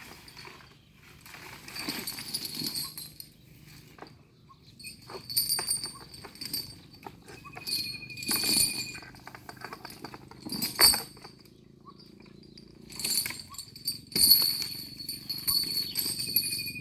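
Repeated bursts of metallic jingling and clinking with a high, thin ringing, coming every second or two, with a short thin whistle-like tone near the middle.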